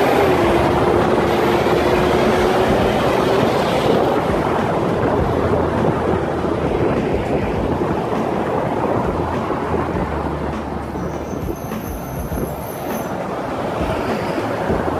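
Wind noise on a helmet-mounted microphone while riding alongside road traffic. A heavy dump truck's drone is heard for the first few seconds as it is passed.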